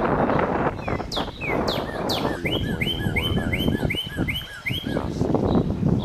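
Dubbed-in bird-chirp sound effect: a few quick falling whistles, then a run of about eight short repeated chirps, about three a second. Underneath is a steady low rushing noise.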